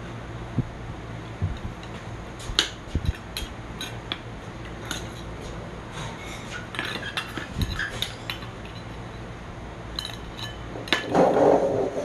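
Metal spoon clinking and scraping against the bowls as rice is stirred into a bowl of beef soup: scattered light clinks over a steady low hum, with a short louder burst of noise near the end.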